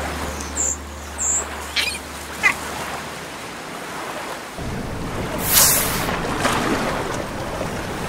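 Water ambience on open sea: a few short, high bird chirps in the first two and a half seconds. About halfway through, a steady wash of wind and waves comes up, with one loud hissing surge of water a little after that.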